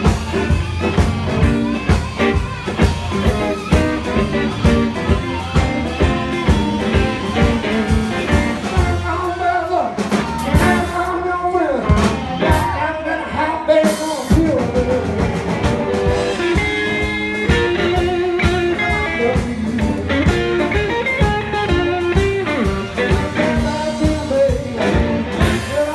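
Blues band playing: guitar over bass and a steady drum beat, with singing.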